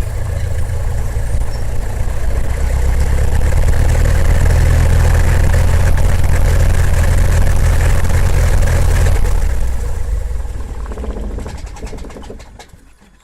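Light propeller airplane's engine running with a steady deep drone. About nine seconds in it is cut and dies away over the next few seconds as it spins down.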